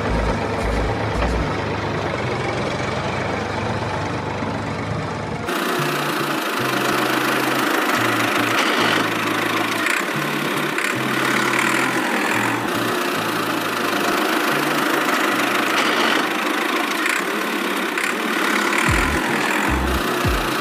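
Tractor engine sound running steadily, the kind laid over toy-tractor footage rather than made by the toy itself; the sound changes abruptly about five and a half seconds in.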